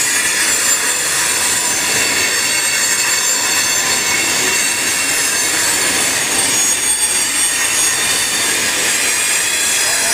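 Freight train of loaded open-top hopper cars rolling past at speed through a grade crossing: steady, loud wheel-on-rail running noise.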